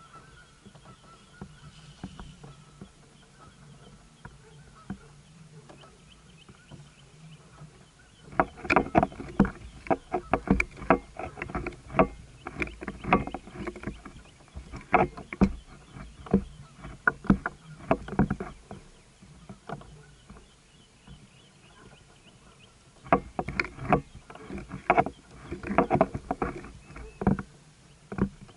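Loud, irregular knocks and rattles against a plastic fishing kayak and its gear as a fish is fought on a bent rod from the standing kayak. They start about eight seconds in, stop briefly around twenty seconds, and come back near the end.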